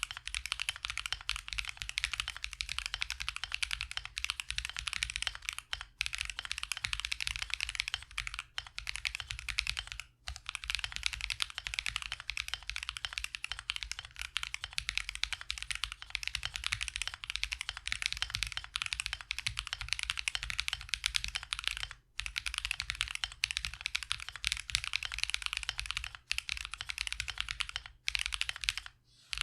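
Fast, continuous typing on a mechanical keyboard with Akko CS Wine White tactile switches, factory-lubed, giving a sharp, clacky sound, with a few short pauses.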